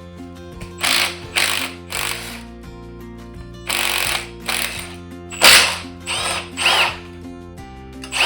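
A power tool running in repeated short bursts, about eight of them, some with a whine that rises and falls, as it works bolts off the engine. Steady background music plays underneath.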